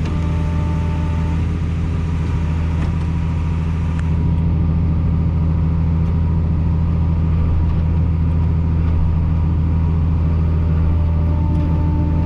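Tractor engine running steadily under load, driving the grain cart's unloading auger to top off a wagon. It gets a little louder about four seconds in.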